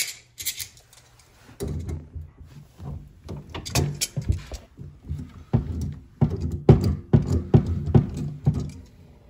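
Irregular low thumps, knocks and rustling of hands working on the plastic dishwasher tailpiece slip nut under a kitchen sink drain while it is being tightened by hand, starting about one and a half seconds in after a single click.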